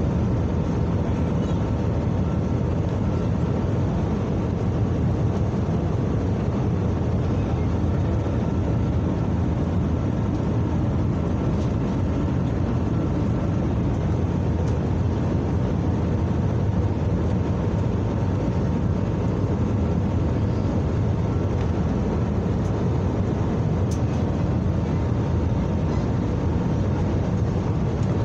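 Steady cabin noise inside an Airbus A321neo airliner: a constant low rush of engine and airflow with a faint steady tone over it, unchanging throughout.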